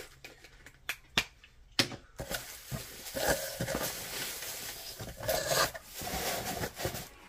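Crinkle-cut paper shred filler rustling as hands dig through it and pull it out of a cardboard box. A few sharp taps and clicks come first, and the rustling is continuous from about two seconds in.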